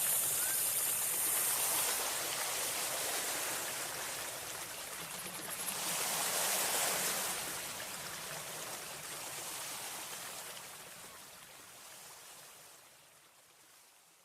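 Steady rushing noise, like flowing water, that swells briefly in the middle and then fades gradually to near silence near the end.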